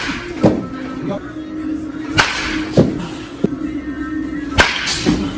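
Baseball bat hitting balls in batting practice: sharp cracks, two loud ones about two and a half seconds apart, with lighter knocks in between. Background music plays underneath.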